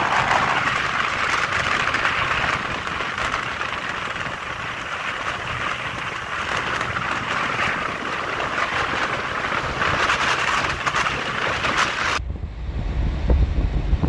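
Steady hiss of wind and road noise from a moving car. About twelve seconds in it changes abruptly to low wind buffeting on the microphone.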